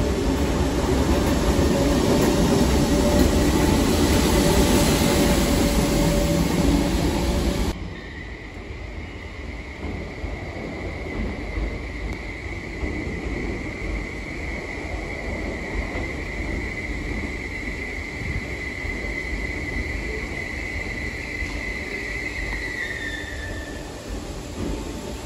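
A Merseyrail electric multiple unit running past the platform in an underground station, a loud rumble that cuts off about eight seconds in. Then a steady high-pitched wheel squeal from a train approaching on the curved track, which rises slightly and stops shortly before the end.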